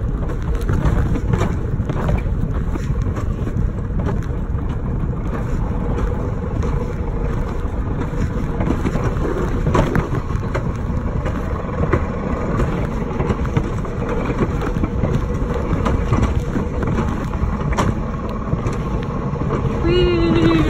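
Steady rumbling rush of a bobsled coaster car running down its rail track, with a few sharp clacks along the way. Near the end a person's voice calls out briefly, falling in pitch.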